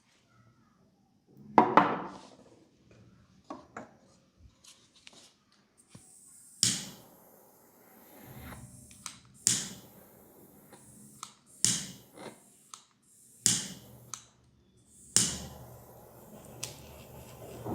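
Sharp hand slaps of a percussive head and neck massage: a loud cluster of slaps about two seconds in, then single slaps every two seconds or so, with faint rubbing between them.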